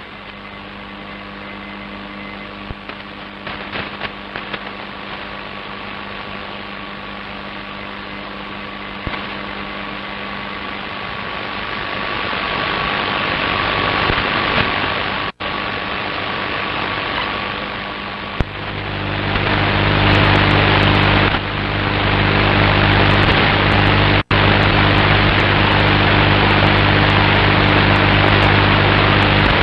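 Shortwave radio receiver hiss and static with a faint steady tone. About two-thirds of the way through it switches to louder hiss with a low buzzing hum, and the sound cuts out briefly twice.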